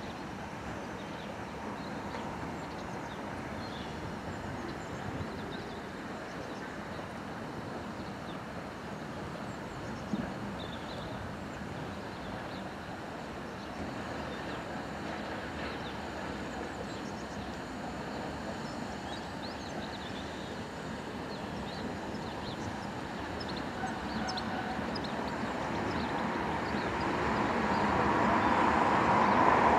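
Standing steam locomotive simmering with a steady hiss of steam. Near the end a louder rush of steam swells as a steam locomotive hauling freight wagons reverses closer.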